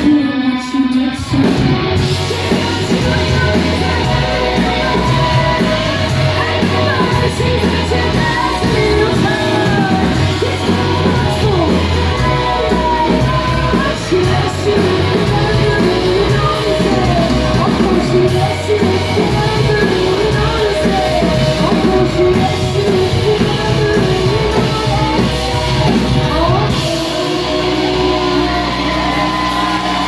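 Live rock band playing in a hall with a woman singing lead over acoustic and electric guitars and bass. About three seconds before the end the low notes settle into one steady held note.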